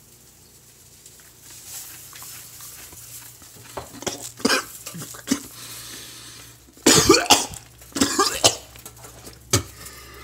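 A man coughing and sputtering again and again after a mouthful of dry sea salt. The coughs come in separate bursts and are loudest about seven to eight and a half seconds in.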